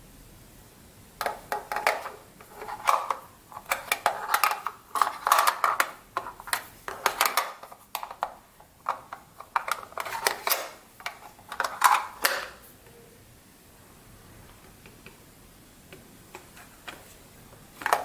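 Hard plastic remote-control housing parts being handled and fitted together, a dense run of irregular clicks and knocks for about eleven seconds, then only a few scattered clicks.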